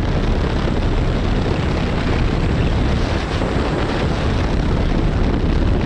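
Steady wind rush buffeting the microphone, mixed with engine and road noise, as a Yamaha R15 motorcycle cruises in sixth gear at about 70 km/h.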